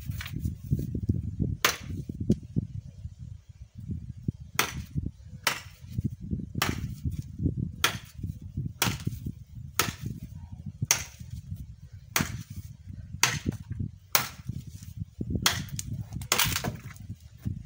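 Firewood being split by hand: sharp chopping blows into wood, one early on and then a steady run of about one a second, over a low rumble.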